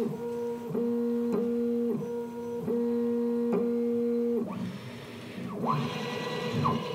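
Condor key-decoding machine's stepper motors whining as its probe steps along a key reading the depth of each cut. The steady hum breaks off briefly about every two-thirds of a second. About four and a half seconds in the hum stops, and the motors give short rising whines as the carriage moves on.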